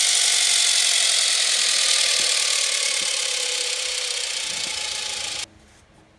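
A 5 hp Century Electric single-phase repulsion-start motor running, heard as a loud, steady hiss with a faint hum underneath, slowly getting quieter. It cuts off abruptly about five and a half seconds in.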